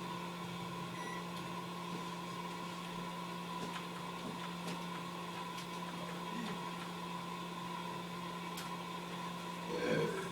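Steady electrical hum from a running appliance. Just before the end comes a man's short, low burp.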